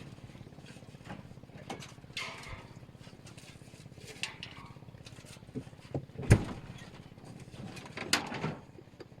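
Scattered knocks and clatters over a low steady background, with one heavier thump about six seconds in.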